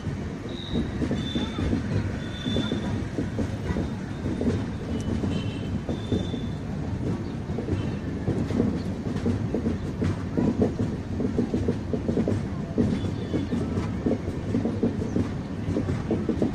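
LHB passenger coaches rolling past on an arriving train, wheels clattering steadily over the track with a low rumble. Several short high wheel squeals sound in the first six seconds or so.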